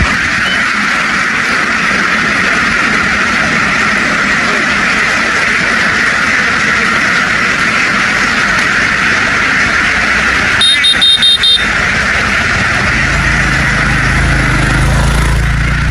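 An engine running steadily, with a short run of rapid beeps about eleven seconds in and a deeper engine note coming in near the end.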